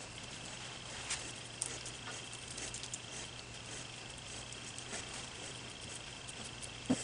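Faint scattered clicks and light knocks of wood pieces and clamps being handled during a cutting-board glue-up, over a steady high-pitched hum. One louder knock comes near the end.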